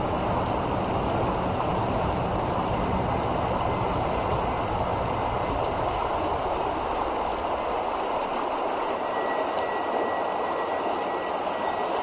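River water rushing over a shallow, rocky riffle: a steady rush of flowing water, its low rumble easing off about halfway through.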